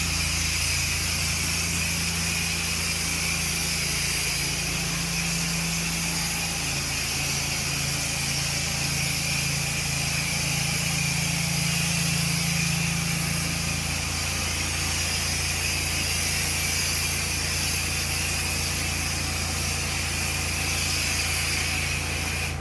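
Pressure washer's engine running steadily under load with a constant hiss of spraying water.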